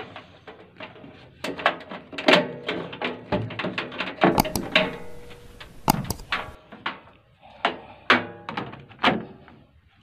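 A rapid series of knocks and clunks, some with a short metallic ring, from a microwave oven's sheet-metal case being handled and moved about.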